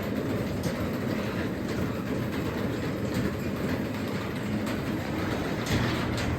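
Craftsman 3/4 hp garage door opener running as it closes the door, a steady mechanical running noise with light rattling and clicking from the door travelling along its tracks.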